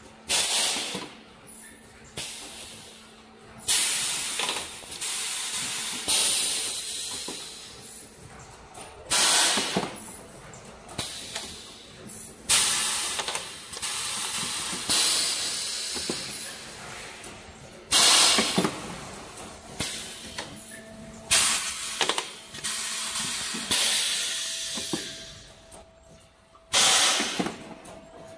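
Automatic cup mask making machine running, with irregular hissing bursts of compressed air, each about a second long, over a faint steady hum.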